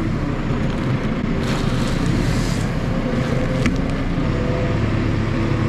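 Farm loader's diesel engine running steadily under load as it carries bulk bags of fertiliser on its pallet forks, with a couple of short knocks or rattles from the machine.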